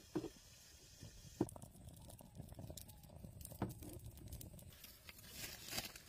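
Wood fire in a clay stove crackling faintly, with a few sharp pops.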